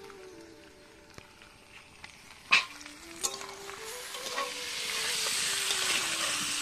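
Raw chicken pieces frying in hot oil with onions and whole spices. A sharp knock about two and a half seconds in, then sizzling that swells from about four seconds in and stays strong.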